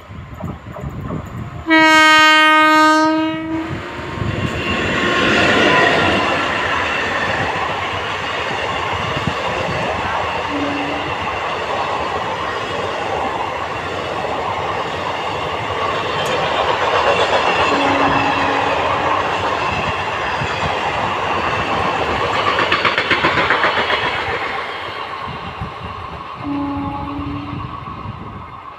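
Train horn sounding one loud blast of about two seconds as the Howrah Intercity Express approaches. Its long rake of ICF coaches then runs past, wheels clattering over the rail joints, and the noise fades near the end.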